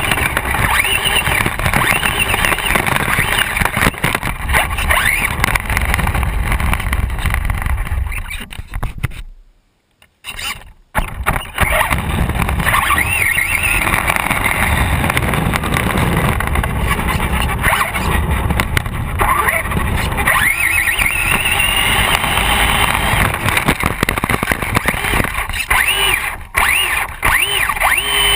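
Traxxas Bandit RC buggy's brushless electric motor whining, its pitch rising and falling as it speeds up and slows, over the rush and rattle of its tyres on pavement and grass. About nine seconds in, the sound cuts out almost completely for about a second and a half before resuming.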